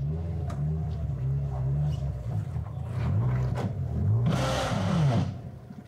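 Mitsubishi car engine running on condensed milk instead of motor oil, its revs held up and rising and falling several times to keep it from stalling, as it only reluctantly holds idle. A brief hiss comes about four seconds in.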